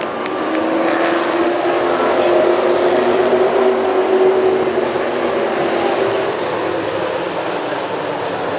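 A pack of stock car engines running together on the track, a steady loud drone whose engine notes waver slightly as the field goes by.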